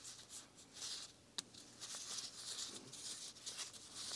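Faint rustling and rubbing of disposable-gloved fingers working a new seal ring into the groove of a BMW double VANOS piston, with one sharp click about a second and a half in.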